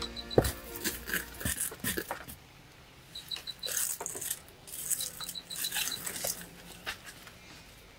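Stones knocking and scraping as they are lifted and set down in the ash of a cold fire pit, with scuffs of ash and twigs being pushed aside; the sharpest knock comes about half a second in. Two short runs of rapid, high chirping sound a little past the middle.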